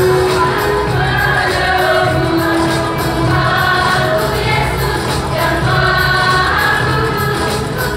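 Choir of mostly women's voices singing a song with sustained notes, over a steady low instrumental accompaniment.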